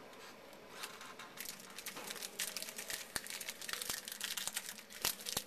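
A stack of baseball trading cards being handled and flipped through: a run of quick, dry clicks and crinkles that grows busier about a second in.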